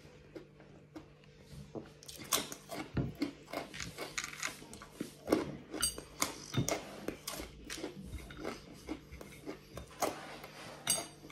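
Close-up mouth sounds of a person eating crunchy fried garlic pieces: irregular crunching, smacking and wet chewing, several crackles a second, starting about two seconds in.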